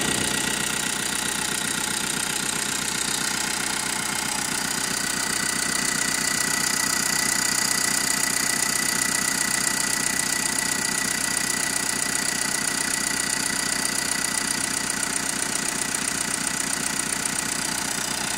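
VW Transporter T6 2.0 TDI four-cylinder turbodiesel idling steadily, heard from the open engine bay.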